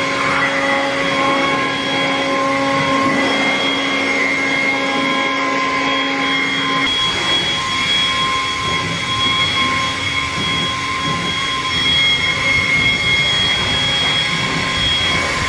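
Handheld electric leaf blower running steadily, a rush of air with a steady whine, blowing dust out of a stripped car shell. Its tone shifts slightly about halfway through.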